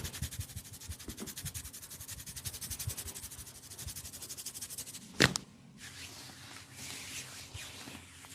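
Hands massaging skin: fast, even rhythmic rubbing or tapping strokes, a single sharp loud smack about five seconds in, then softer, irregular rubbing.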